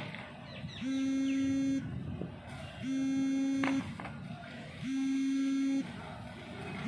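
An electronic buzzer sounding a low, one-second buzz every two seconds, three times, with a few light plastic clacks as disc cones land on the paving.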